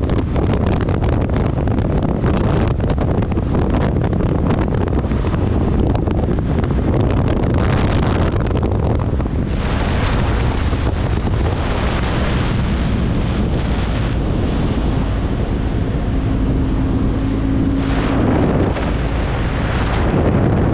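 Wind buffeting the microphone of a camera on a motorcycle riding at road speed, with the machine's engine and tyre drone underneath. Loud and steady throughout, with a faint held tone for a few seconds near the end.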